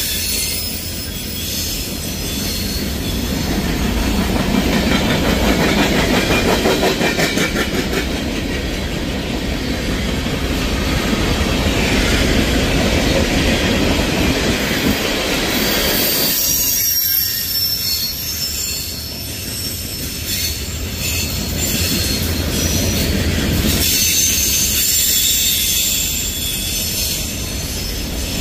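Freight cars of a CSX mixed freight train rolling past close by: a steady rumble of steel wheels on rail with rhythmic clicking, and high wheel squeal coming and going.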